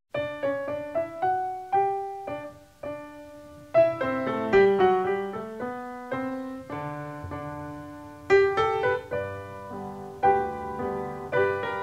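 Solo piano music starting out of silence: a gentle melody of single struck notes and chords, each note dying away.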